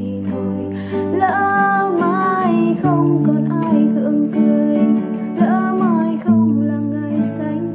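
Classical nylon-string guitar fingerpicked, sustained bass notes under plucked melody and chord notes.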